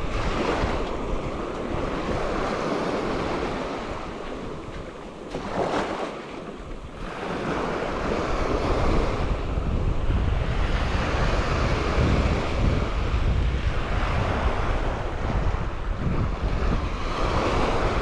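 Gulf of Mexico waves breaking and washing up the beach in swells. Wind buffets the microphone with a low rumble, heavier in the second half.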